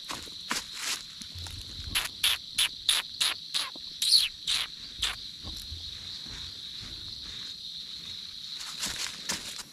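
Insect chorus, a steady high trill throughout. Over it comes a run of about ten sharp smacks close to the microphone, around three a second, from about two to five seconds in.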